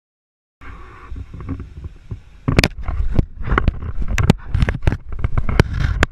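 A camera being chewed inside an animal's mouth: sharp knocks and clicks of teeth on the camera housing over a heavy rumble of handling noise, starting about half a second in.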